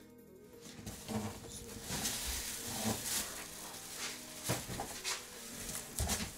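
Plastic wrapping rustling and crinkling while a subwoofer is unpacked from its cardboard box, with a few dull knocks of the box being handled.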